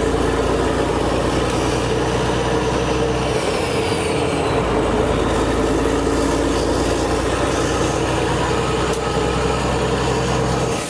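Straight-piped Caterpillar C15 diesel engine of a semi truck running under way, a loud, steady exhaust drone with no muffler, heard through open cab windows. The low rumble drops out briefly about three and a half seconds in, then carries on.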